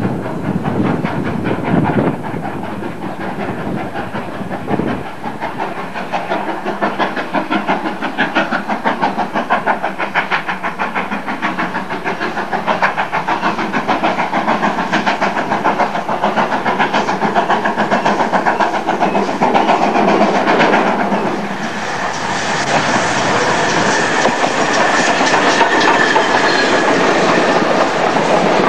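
Great Western Railway steam locomotive hauling a train of coaches, approaching and passing close by with a steady rhythmic beat. It gets louder and brighter about three quarters of the way through as the engine and coaches come alongside, with the wheels clicking on the track.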